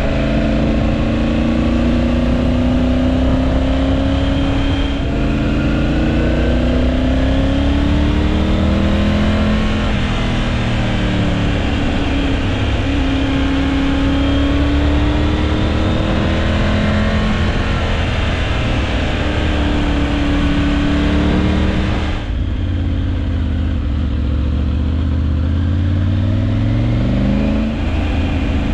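Triumph Tiger 900 Rally Pro's three-cylinder engine under way, its pitch rising and falling with throttle and gear changes, over steady wind rush. The wind rush drops away about three-quarters of the way through, and the engine then climbs steadily in pitch before a brief dip near the end.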